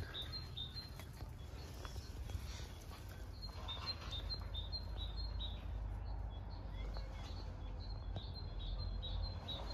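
A small bird chirping repeatedly, short quick high notes, a few at first and then several a second from about a third of the way in, over a low steady background rumble.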